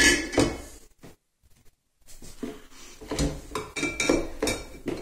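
Glass canning jars of milk clinking and knocking against one another as they are set down into a cooler. A clatter comes right at the start, then a silent break, then a run of knocks and clinks from about two seconds in.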